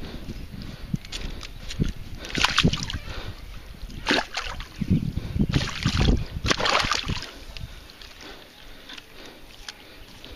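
Water splashing and sloshing in irregular bursts as a hooked pike thrashes in the shallows near the shore. The splashes come in bunches about two seconds in and again from about five to seven seconds, then die down.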